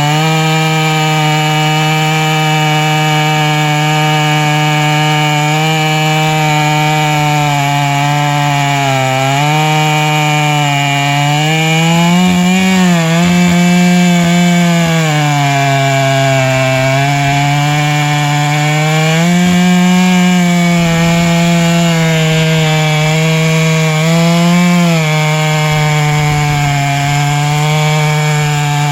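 Chainsaw engine running at high speed under load while ripping a log in a chainsaw mill. Its pitch dips and recovers several times as the cut loads it.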